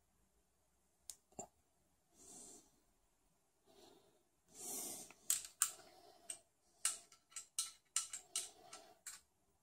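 Close handling noise: a few soft breaths, then from about five seconds in a quick run of sharp small clicks and taps as a low-profile graphics card and its metal bracket are handled in the fingers.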